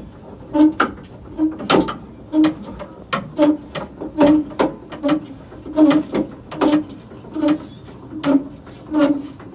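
Spare-tire hoist of a Toyota Tacoma being cranked down with the extension rod and lug wrench, creaking and clicking in a steady rhythm, about one or two pulses a second, as the tire is lowered.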